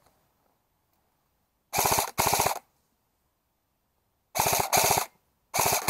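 Airsoft electric rifle (AEG) firing short full-auto bursts of rapid clicks, mostly in pairs: two bursts about two seconds in, two more about a second later than halfway, and another pair starting near the end.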